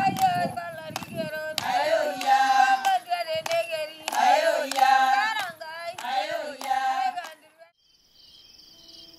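Soundtrack music: a choir singing with hand claps, which stops about seven and a half seconds in. After a short pause, a quieter new piece begins with a high, rapidly pulsing chirp.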